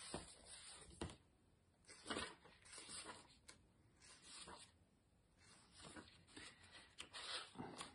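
Near silence with faint, scattered rustling: small handling noises, about one short scrape a second, from someone moving things within reach.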